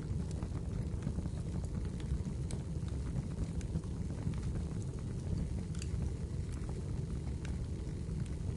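Wood fire in a fireplace burning with a steady low rumble of flames, with sharp crackles and pops scattered irregularly through it.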